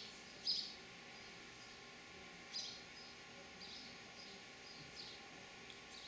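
House sparrows chirping at a nest box: about four short, high chirps, the loudest about half a second in, over a steady high-pitched drone.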